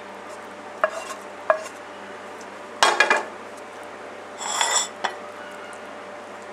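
A frying pan and utensil knocking and scraping against a plate as food is scraped out onto it: two light knocks, a loud clatter about three seconds in, then a ringing, scraping clink near five seconds.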